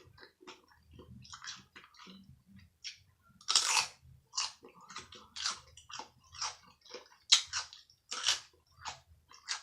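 Chewing and mouth sounds of someone eating a turkey, ham and cheese sandwich, in short irregular strokes; the loudest come about three and a half seconds in and twice near the end.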